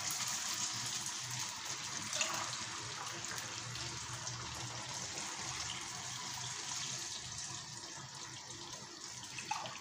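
Boiled water poured from a stainless kettle into a mug, and from the mug into a frying pan of tomato gravy: a steady pouring and splashing of water.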